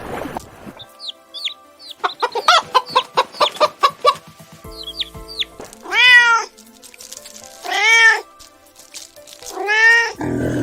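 Domestic cat meowing: three long, drawn-out meows about two seconds apart in the second half, after a quick run of shorter, higher calls. Faint background music runs underneath.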